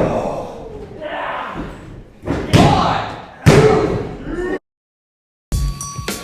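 Wrestlers' bodies slamming onto a wrestling ring's canvas, two heavy impacts about a second apart, among shouting voices. The sound cuts off abruptly after them.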